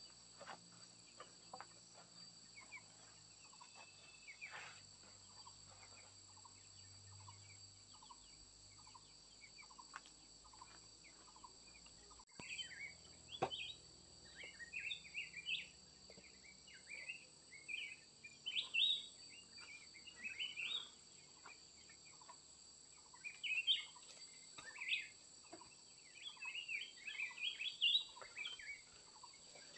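Birds giving many short, high chirps in quick clusters, starting about twelve seconds in, over a steady high drone of insects. A single knock sounds just before the chirping starts.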